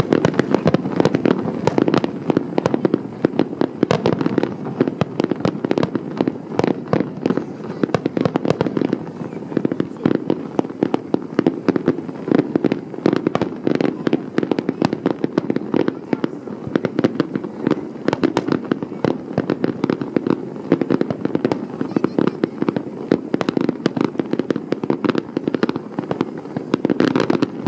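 Aerial fireworks display: a rapid, continuous barrage of shell bursts, bangs and crackles, many per second, over a steady low rumble.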